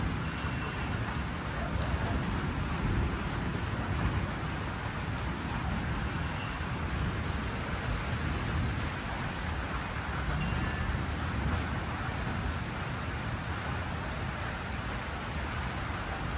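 Steady rain falling in a thunderstorm, with a low rumble of thunder underneath.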